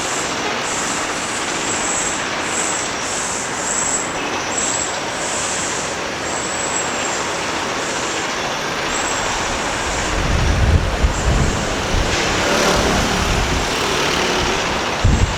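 City street traffic noise, a steady hiss of passing vehicles. About two-thirds of the way in, a deeper, uneven low rumble joins it.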